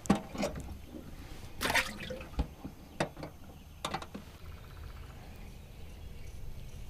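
Water splashing and dripping in a boat's live well as a bluegill is dropped in, the biggest splash a little under two seconds in, with a few sharp knocks after it.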